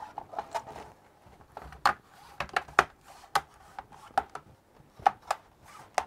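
Plastic bottom cover of a laptop being pressed down around its edges, its retaining clips snapping into place in a string of sharp, irregularly spaced clicks.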